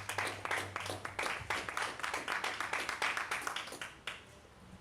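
A small audience clapping, thinning out and stopping about four seconds in.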